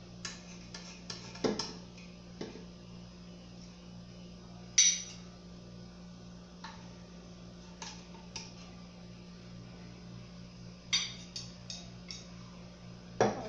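A metal spoon clinking and scraping against the inside of a pressure cooker pot and against a plate as pieces of pot roast are lifted out and served. The clinks are sharp and scattered, the loudest about five seconds in, over a low steady hum.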